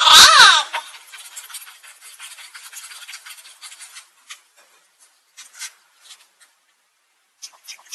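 A short loud squeal-like burst, then light rubbing and irregular clicking handling noises, falling silent briefly near the end.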